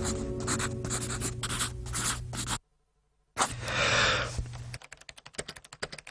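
Pen scratching on paper in quick strokes over a low steady hum, cutting off abruptly about two and a half seconds in. After a short silence comes one longer scratching stroke, then rapid computer keyboard typing, many clicks a second.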